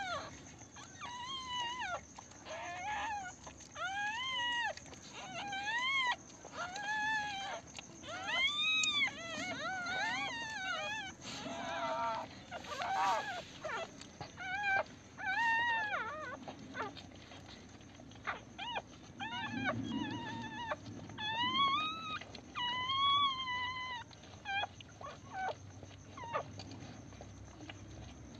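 Newborn Pomeranian puppies crying with high, thin squeals that rise and fall, about one a second, growing sparse near the end, while they root at the mother's belly to nurse.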